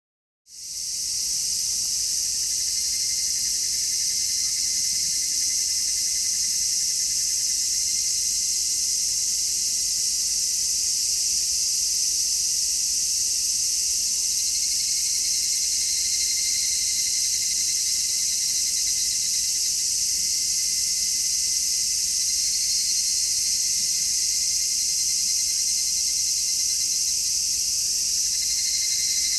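A chorus of cicadas making a dense, steady, high-pitched buzz that fades in over the first second, with fainter cicada calls swelling and fading underneath it now and then.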